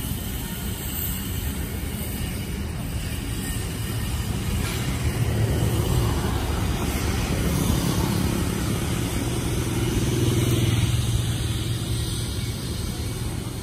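Road traffic: motor vehicles passing, one engine growing louder through the middle and fading again.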